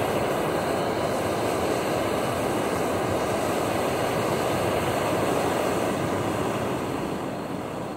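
Jetboil MightyMo regulated canister stove's burner burning at full power: a steady rushing flame noise that stops abruptly near the end.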